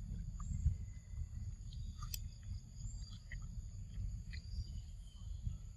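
Steady high insect trilling over a constant low rumble, with a few faint short clicks scattered through.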